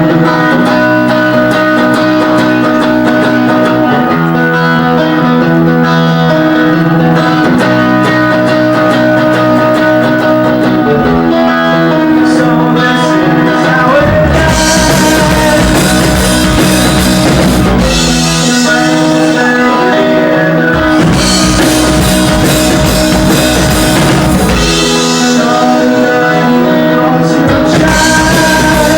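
Live rock band playing a song: guitar chords ring out, then the drum kit and cymbals come in about halfway through, with short breaks in the drums near the end.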